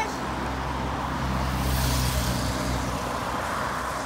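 A Volkswagen race convoy car passing close by: engine hum and tyre noise swell to a peak about two seconds in, then fade as it drives off.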